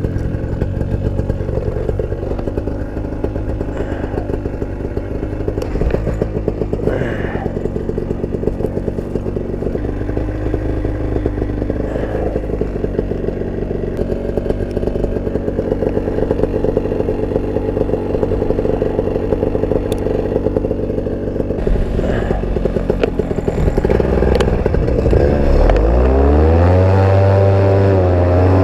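Flat Top paramotor engine running at low throttle after a cold start, then revved up about 25 seconds in, its pitch rising to a steady, louder full-power drone with the propeller.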